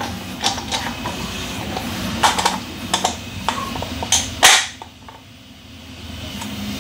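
Clicks and knocks of 3D-printed PLA plastic parts being handled and fitted together by hand, the loudest knock about four and a half seconds in.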